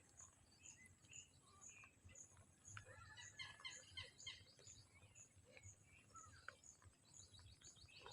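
Faint outdoor ambience: scattered small bird chirps over a thin high call repeating about twice a second.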